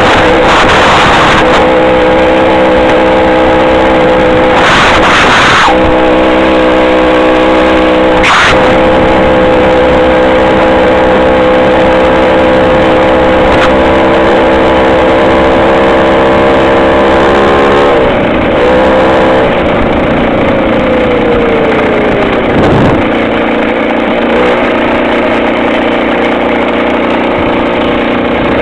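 Two-stroke chainsaw engine driving a homemade motorized bicycle, running loud and steady at high revs. About eighteen seconds in the revs drop, the pitch falling over a few seconds and settling lower. Two brief rushes of noise come through about five and eight seconds in.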